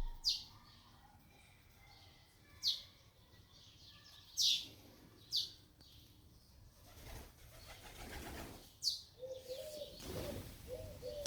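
Pet birds: a handful of short, sharp falling chirps a second or two apart, then near the end a low, wavering coo over a rustling noise.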